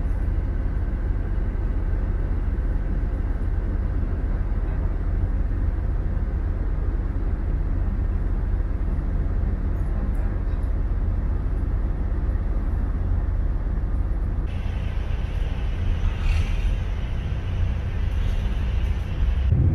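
City bus in motion, heard from inside the cabin: a steady low engine and road rumble. About three-quarters of the way through, a higher hiss joins it.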